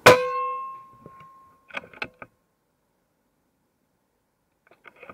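A single shot from an unregulated PCP air rifle firing H&N Sport slugs: a sharp crack with a short ringing tone that fades within about a second. A quick run of small clicks follows about two seconds in.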